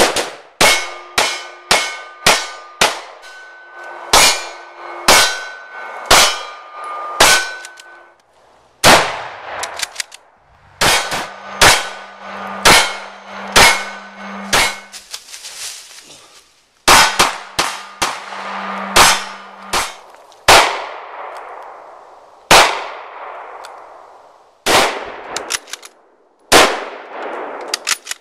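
A long series of single gunshots from a rifle and handguns, about one a second at first and then more spaced out. Many shots are followed by a ringing metallic tone, typical of steel targets being hit.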